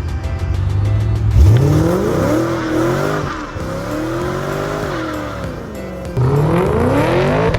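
2006 Ford Mustang GT's V8 engine accelerating hard: its pitch climbs steeply about a second and a half in, then falls away, rises and falls again, and climbs steeply once more near the end.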